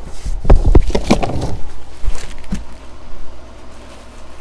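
Handling noise: rustling and a few sharp bumps as a plastic-wrapped item is pulled out of a box. This is loudest in the first second and a half, followed by one more knock about two and a half seconds in.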